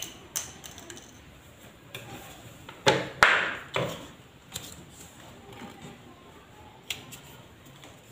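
Scissors and a plastic drinking straw being handled on a wooden tabletop: a few light clicks, with a cluster of louder knocks about three seconds in and another click near the end.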